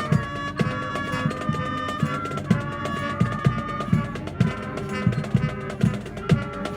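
High school marching band playing: brass and wind instruments hold a melody over a steady drum beat of about two hits a second.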